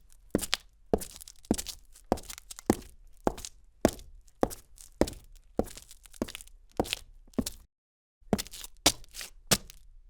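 Footsteps walking on gritty cement, each step a sharp gritty scrape, about two steps a second. The sound drops out completely for a moment about eight seconds in, then the steps resume, a little quicker.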